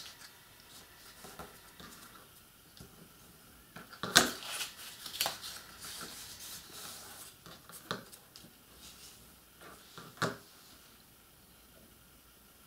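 Paper being handled and folded by hand along scored edges: a few short, sharp rustles and crackles, the loudest about four seconds in, with quiet stretches between.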